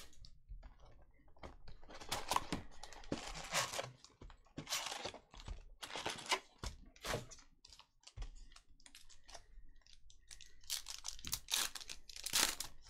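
Trading-card pack wrappers being torn open and handled, with irregular crinkling, tearing and crackling in quick clusters.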